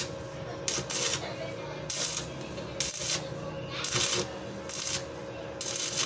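Repeated hand scraping strokes on a metal part, about one a second, each a short hiss, over a faint steady hum.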